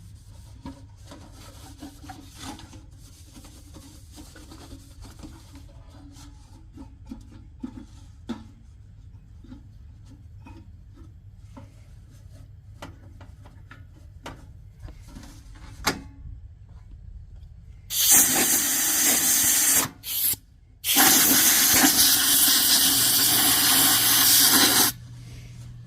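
Compressed air blown through a forced-air heater's removed parts to clean them out. First come light clicks and knocks of parts being handled, then two loud rushing blasts of air near the end, about two seconds and then about four seconds long, with a short puff between.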